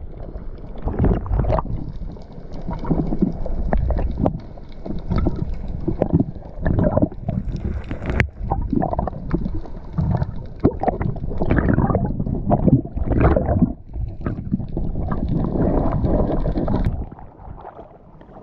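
Sea water sloshing and gurgling, heard muffled with the microphone held underwater among small waves against a rock, with irregular knocks and bumps. It drops off and goes quieter about a second before the end.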